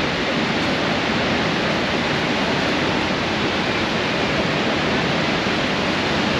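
Steady, unbroken roar of Niagara's Horseshoe Falls and the churning water below it, heard from a boat close to the base of the falls.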